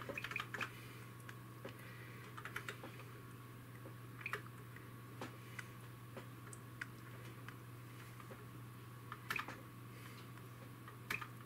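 Scattered keystrokes on a DEC VT320 terminal's keyboard, a few quick key clicks at a time with pauses between, over a faint steady hum.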